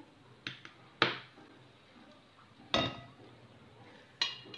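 Stainless steel kitchenware clinking: a perforated steel spatula and steel plates knocking together four times, the first knock faint, each with a short metallic ring.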